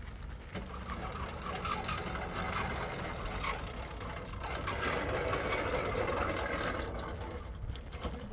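Wind King 400 airboat's 35 hp Loncin engine running with its propeller, growing louder about halfway through.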